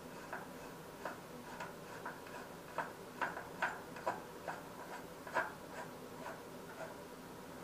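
Faint, irregular light clicks, about two a second, as the rear axle nut is run back on and tightened on a Ducati Monster 1100's rear wheel.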